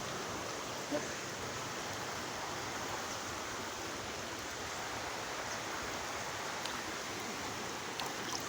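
Steady rushing of a fast-flowing stream, the water running high, with a small knock about a second in.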